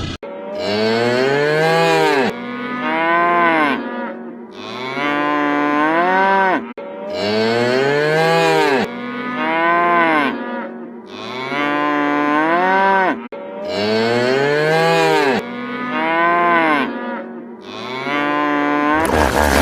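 Cattle mooing: a series of about eight long, loud calls, one every two seconds or so, each rising and then falling in pitch.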